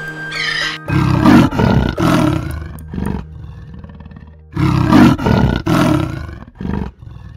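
Leopard giving its rasping sawing call: two bouts of about three deep, coarse grunts each. The first bout starts about a second in and the second about four and a half seconds in.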